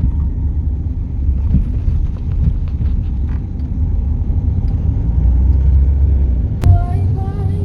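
Mahindra XUV700 driving on a road, a steady low rumble of tyres and engine.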